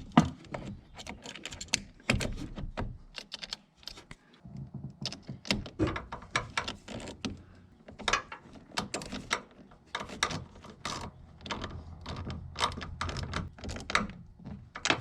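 Irregular clicks, taps and knocks of hand tools and metal parts being handled while a battery ground cable is fastened to its terminal.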